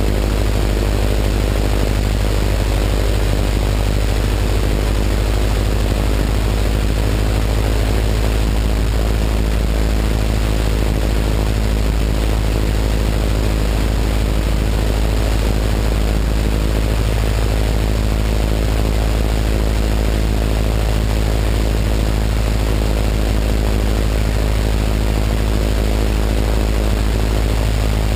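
Biplane's piston engine and propeller running at a steady cruise drone in flight, with a heavy rush of wind over the wing-mounted camera.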